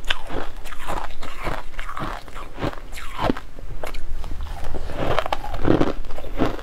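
Crushed coloured ice being bitten and chewed up close: a run of crisp, irregular crunches, about two a second.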